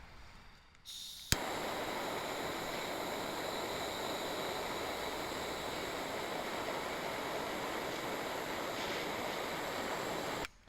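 Portable camping gas burner lit with a sharp piezo-igniter click, then a steady, even hiss of the burning gas that stops abruptly near the end.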